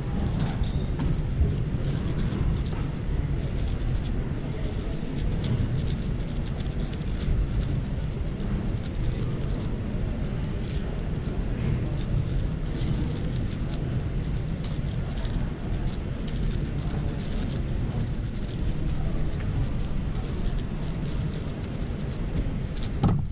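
Fast, continuous plastic clicking of a MoYu AoShi WR M 6x6 speed cube being turned, over a steady low rumble and faint chatter from a large hall.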